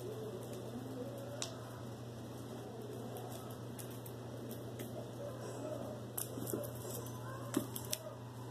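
Light rustling and scattered small clicks of a cat playing with a feather wand toy on carpet, with a few sharper clicks in the last couple of seconds as the cat leaps at the toy, over a steady low hum.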